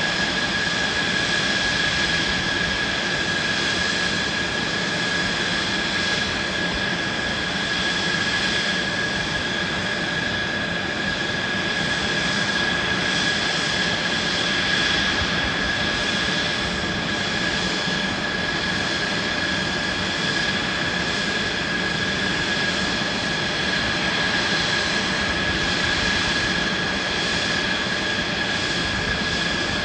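Mitsubishi F-2 fighters' F110 turbofan engines idling on the ground: a steady jet roar with a constant high whine that neither rises nor falls.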